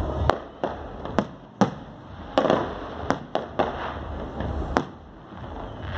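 Fireworks display: aerial shells bursting in about ten sharp bangs at irregular intervals, some a fraction of a second apart, some a second or more.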